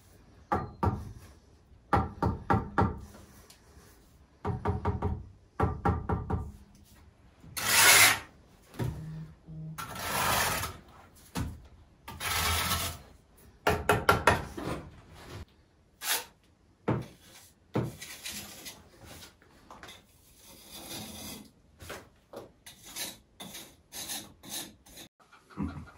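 Steel brick trowel knocking and scraping on the soldier course of a brick fireplace as the bricks are set in mortar. Quick clusters of taps come early on, then several rasping scrapes about a second long, then fainter scattered taps near the end.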